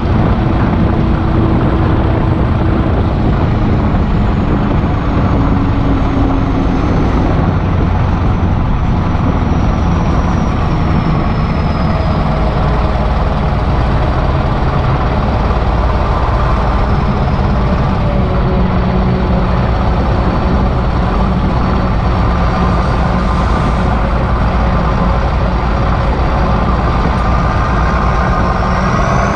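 Kirovets K-700 tractor's turbocharged diesel engine running steadily while driving, with a deep, even rumble. A faint high whistle slowly falls in pitch through the first half and rises again near the end.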